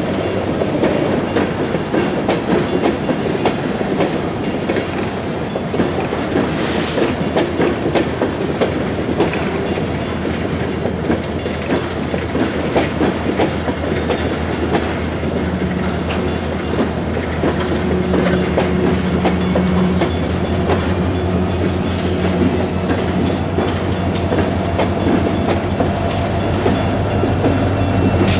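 A coal train's hopper cars rolling through a grade crossing: a steady rumble of steel wheels on rail with a quick clickety-clack over the rail joints. A low steady hum comes in about halfway through and grows toward the end.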